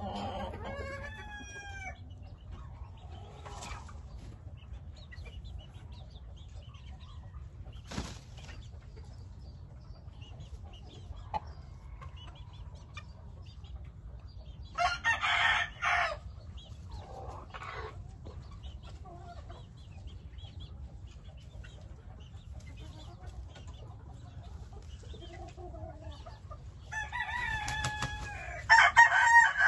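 Game roosters crowing: one crow about halfway through and a longer, louder one near the end, with softer clucks and calls between.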